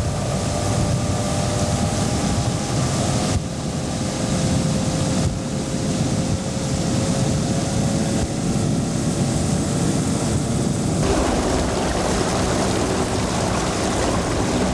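A boat's outboard motor running steadily under way, with wind and water noise; its tone shifts about eleven seconds in.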